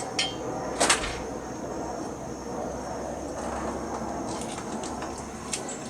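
Yamaha TT-R110's small four-stroke single idling steadily through a newly fitted FMF exhaust, run to check the pipe for leaks. A single sharp click about a second in.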